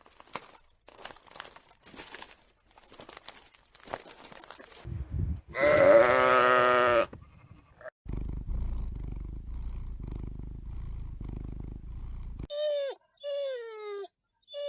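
A string of separate animal sounds: scattered clicks and taps, then a loud wavering bleat-like call about six seconds in, a low steady rumble, and near the end two short calls falling in pitch.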